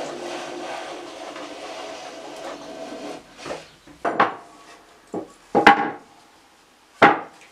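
Steel hand plane stroking along the top edge of a pine box, a steady shaving rasp for about three seconds. Then a handful of separate sharp wooden knocks and clunks, the loudest one near the end.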